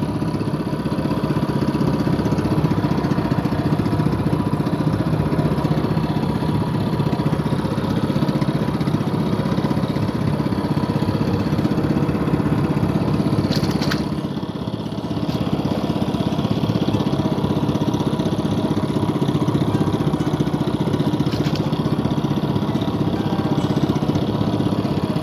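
A small engine running steadily at a constant speed, with a brief dip in level about halfway through.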